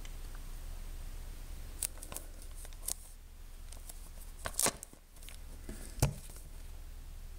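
Fingers handling and turning a cologne box: scattered scrapes and clicks against the packaging, loudest a little past halfway, and a sharp knock at about six seconds. A steady low hum runs underneath.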